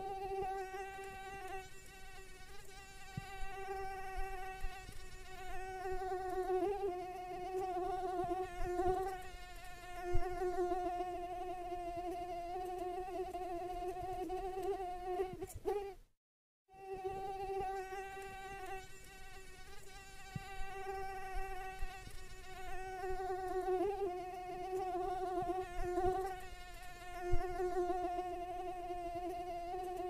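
Mosquito in flight: a steady high-pitched whine from its wingbeats, wavering slightly in pitch and loudness. It stops for about half a second midway, then starts again. Two sharp clicks stand out, one about a third of the way in and one near the end.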